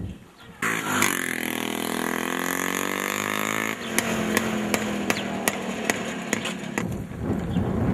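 Small motorcycle engine running as it rides along. Its pitch dips and then rises over about three seconds, then gives way to a steadier hum with scattered sharp clicks.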